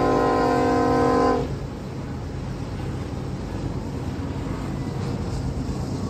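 A diesel freight locomotive's multi-chime air horn sounds a chord that cuts off about a second and a half in. After it, the rumble of the passing freight train's locomotives and cars carries on.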